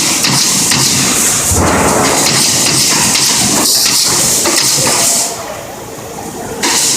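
Pneumatic staple gun firing repeatedly into wood, its quick clacks over a steady, loud hiss of compressed air. The hiss drops out about five seconds in and starts again just before the end.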